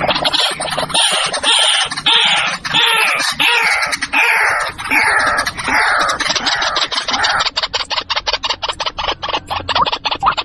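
White-breasted waterhen calling: a run of falling, hoarse calls about two a second, giving way about seven seconds in to a fast clicking rattle.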